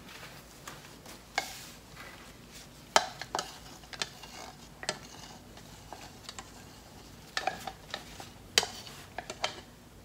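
Irregular clicks and taps of a stir stick knocking and scraping inside a plastic cup as the last of the acrylic paint is scraped out. The loudest knocks come about three seconds in and again near the end.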